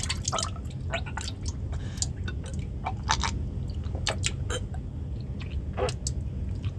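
Vomiting sound effect: irregular wet splats, squelches and drips over a steady low hum.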